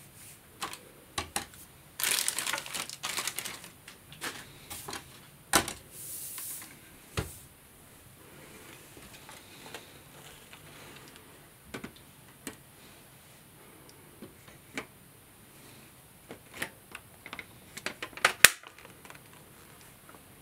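Parts of a Dyson V7 Motorhead cordless stick vacuum being handled and fitted together: scattered plastic clicks and knocks, a short stretch of crinkling plastic wrapping about two seconds in, and a sharp, loud click near the end.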